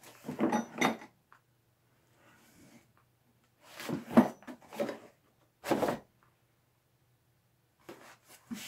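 Hard plastic case of a drum brake tool kit being handled and turned over, giving short knocks and clatters in a few separate bursts with quiet between.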